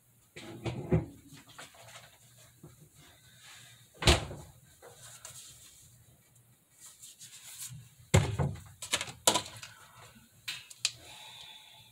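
Kitchen handling noises: a few sharp knocks and thuds, the loudest about four seconds in, and a cluster of knocks and clatter around eight to nine seconds, as smoothie ingredients such as a plastic milk jug are taken out and set down.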